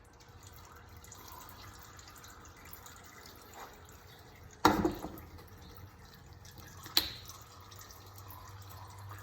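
Engine oil trickling and dripping from a loosened oil filter, with two sharp knocks, one about halfway through and another a couple of seconds later.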